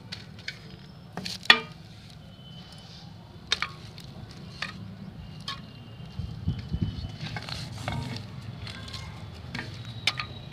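Steel plate knocking and clinking against a work surface and polythene sheets crinkling as the plate is pressed down to flatten rice-papad dough. Scattered sharp clicks, the loudest clack about a second and a half in, over a low steady hum.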